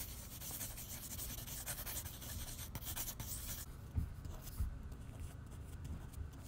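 Pencil scratching across paper in quick sketching strokes, giving way about four seconds in to the softer strokes of a marker pen inking, with a couple of low knocks near the middle.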